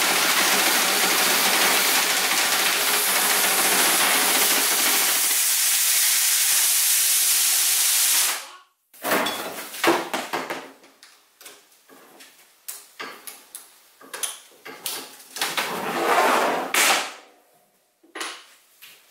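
Cordless drill spinning a rotary chimney-cleaning rod and brush inside a stovepipe: a steady whirring scrape that cuts off abruptly about eight seconds in. After that, scattered clicks and knocks as the flexible cleaning rods are handled and unclipped, with a longer rustling scrape near the end.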